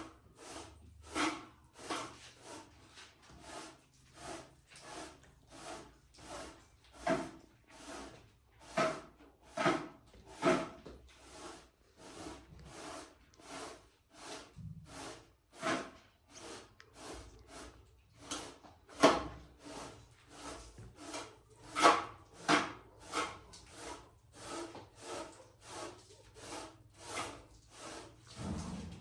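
Steady back-and-forth rubbing or scraping strokes, about two a second, a few of them louder.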